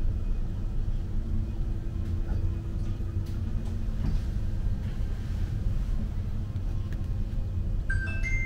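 Steady low rumble and hum of an aerial cable car cabin riding down its cables, with a few faint clicks. Near the end a high, steady ringing tone starts and holds.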